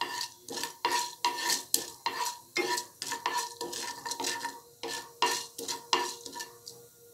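Wooden spatula stirring and scraping urad dal and mustard seeds around a non-stick kadhai in a little oil, in quick strokes about three a second. The stirring stops near the end.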